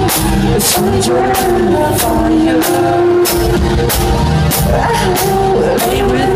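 Live indie-pop band performing a song: sung lead vocals over electric guitar, keyboards and drums. The drums keep a steady beat of roughly three hits every two seconds.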